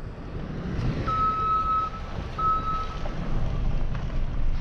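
Reversing alarm on construction equipment beeping twice, a longer high beep then a shorter one, over a steady low vehicle rumble.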